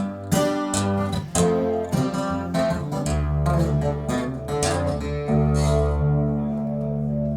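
Recorded music played back over a hi-fi loudspeaker system: a guitar passage without vocals, plucked notes at first, then long sustained deep bass notes from about three seconds in that hold to the end.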